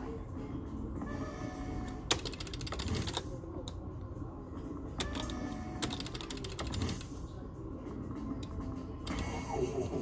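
Merkur video slot machine spinning its reels, with a rapid electronic ticking that lasts about a second each time, three times. A steady low background hum runs underneath.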